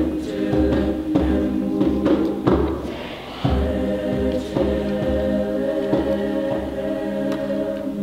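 Mixed high school choir singing sustained chords, with a regular low beat about twice a second beneath the voices.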